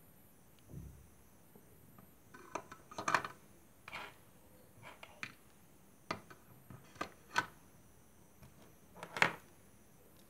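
Mechanical pencils and other small plastic and metal stationery being handled and set down on a desk: a scattering of sharp clicks and taps, the loudest about three seconds in and again near the end.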